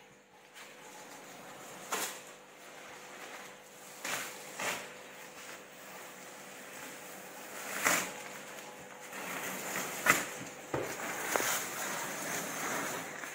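Protective film being peeled off a large acrylic sheet: crackling, tearing pulls every couple of seconds, the sharpest about ten seconds in, turning into near-continuous rustling toward the end. A faint steady hum runs underneath.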